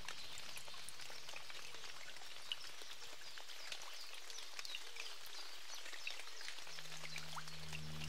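A soft, steady patter of water, many small drips and ticks over a faint hiss. A low music drone fades in about seven seconds in.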